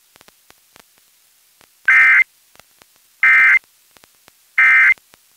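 Emergency Alert System end-of-message (EOM) signal: three short bursts of SAME digital data tones, about a second apart, marking the end of the alert.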